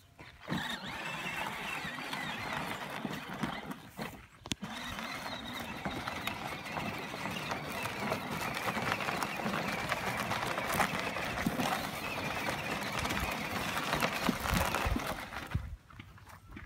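Battery-powered ride-on toy quad driving: its electric motors and gearboxes whining as the plastic wheels roll and rattle over rough dirt and dry grass. The sound cuts out briefly about four seconds in and again near the end.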